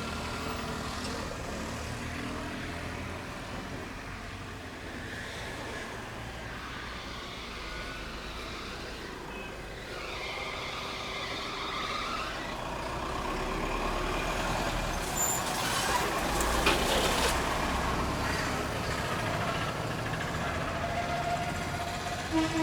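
Road traffic going by: a steady low rumble of engines, growing louder for a few seconds past the middle as a heavy vehicle passes, with a brief hiss.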